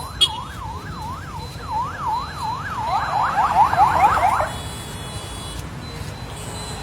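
Convoy escort vehicle's siren passing, wailing up and down about twice a second. About three seconds in, a faster, louder yelp overlaps it, then both cut off about a second and a half later. A steady low traffic rumble runs underneath.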